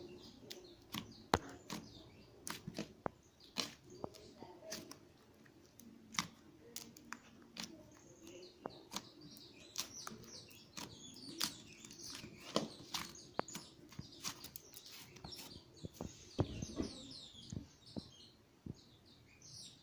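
Slime being squished and poked by hand, giving irregular sticky clicks and small pops over a soft squelching.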